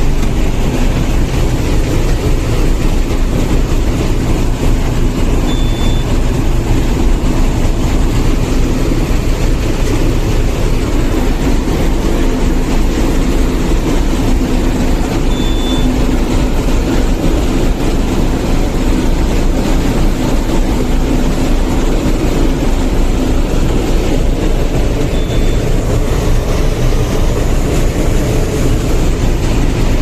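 Corn harvester running steadily while it cuts standing corn, heard from inside its cab as a loud, even machine noise. A short high beep sounds three times, about ten seconds apart.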